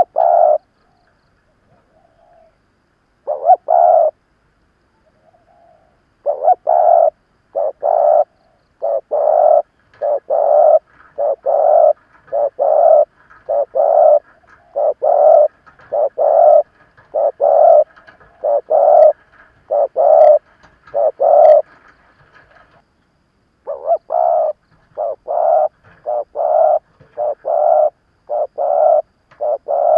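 Spotted dove cooing, the call of a decoy bird used to lure wild doves. A few scattered coos are followed by a long, even run of coo notes at about one a second, broken by a short pause near the end.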